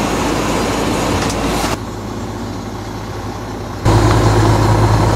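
Paint-striping truck's engine running steadily, heard from inside the cab with a low hum. About two seconds in it drops quieter for a couple of seconds, then comes back louder with a stronger low drone.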